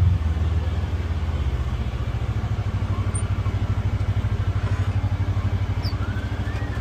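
Polaris Xpedition UTV's engine comes off the throttle just at the start, then runs steadily at low revs with an even pulsing exhaust beat.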